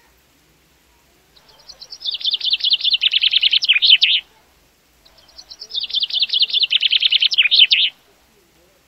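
A songbird singing two loud songs, a few seconds apart. Each song starts with soft high notes, runs into a fast trill of about ten notes a second, and ends in a short flourish.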